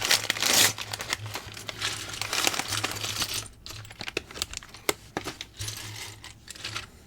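Small plastic building bricks poured out of their plastic bags onto a table: many quick clicks and rattles, with the bags crinkling.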